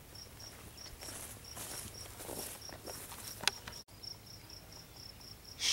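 An insect chirping: short, high chirps repeated steadily, about three or four a second. Faint rustling and one sharp click come partway through.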